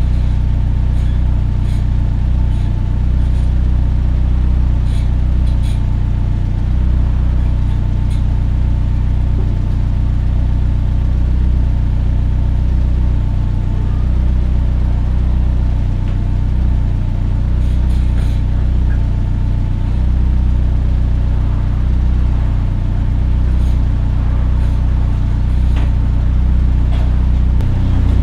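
Turbocharged Mazda Miata four-cylinder engine running steadily at low speed, with no revving.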